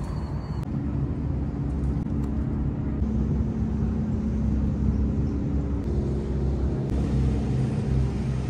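A boat's engine running as it passes on the river: a steady low drone with a few humming tones that shift in pitch now and then.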